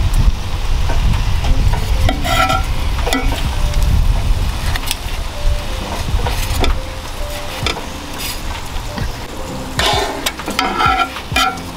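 Beef hot links sizzling on a hot ridged grill plate, with a few sharp clatters about two seconds in and again near the end.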